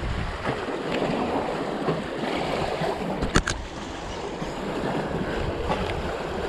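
Wind buffeting the microphone over the steady wash of sea waves, with a sharp double click about halfway through.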